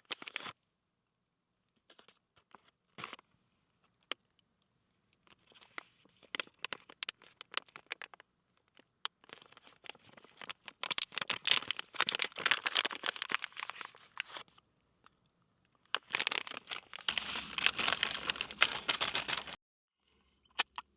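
Crinkling and rustling of handled material, with scattered clicks and taps. The rustling comes in two longer bouts, one about ten seconds in and one near the end.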